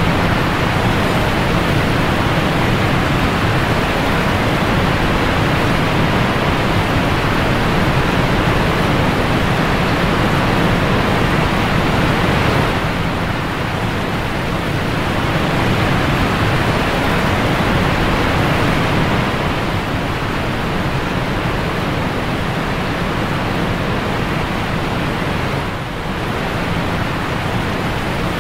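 Steady, loud rush of churning whitewater rapids close around an inflatable raft, easing a little about halfway through.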